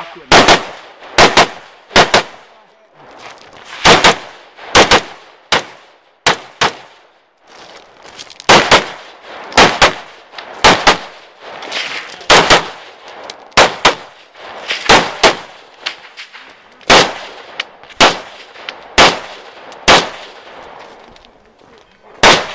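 Semi-automatic AR-style carbine firing a string of shots, many as quick pairs, roughly one or two shots every second with short pauses between groups. Each shot rings out briefly.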